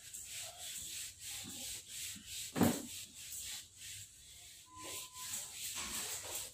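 Handheld whiteboard eraser wiping marker off a whiteboard in quick back-and-forth strokes, with one louder knock about two and a half seconds in.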